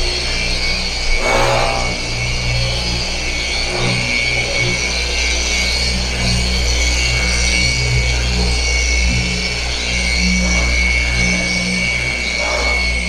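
Hand-held electric car polisher with a foam pad running steadily on a car's painted bonnet, a continuous high motor whine over a low hum that wavers a little as the pad is pressed and moved. It is working extra-fine compound into the paint as paint correction before coating.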